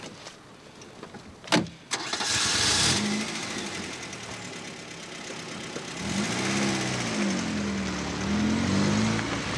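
A car door shuts with a single knock about one and a half seconds in, then the car's engine starts and runs. From about six seconds in the engine revs up and down as the car moves off.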